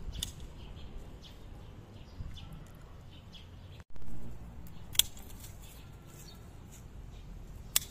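Outdoor ambience: a steady low rumble with faint bird chirps, broken by two sharp clicks, one about five seconds in and one near the end.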